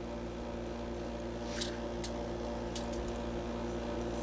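Steady low electrical hum, with a few faint clicks from the plastic toy figure being handled as a part is pushed into place.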